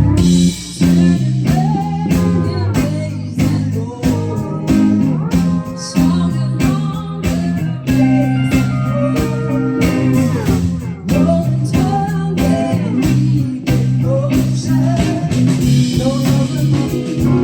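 Live band playing an instrumental break in a blues-rock song: a lead guitar solos with bending notes over bass and a steady drum beat.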